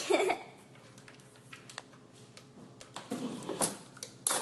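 Irregular light clicks and taps in a small room, with a louder cluster right at the start and another about three seconds in.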